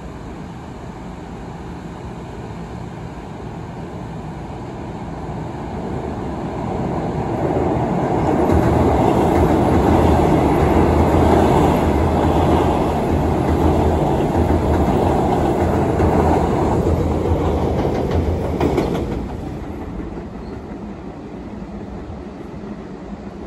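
Keio 7000 series eight-car electric commuter train crossing a bridge. The rumble and wheel clatter build as it approaches and stay loud for about ten seconds as the cars pass. Near the end the sound drops off suddenly to a fainter train sound.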